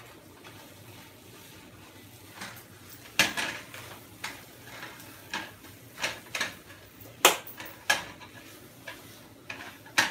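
Spatula scraping and knocking against a frying pan while scrambled eggs with bacon are stirred: irregular clatters, the loudest about three seconds in and again about seven seconds in.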